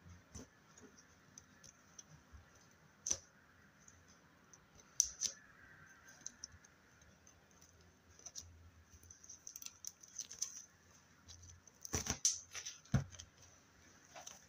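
Slime being squished and poked by hand: irregular small sticky clicks and pops, with a denser run of clicking about twelve seconds in.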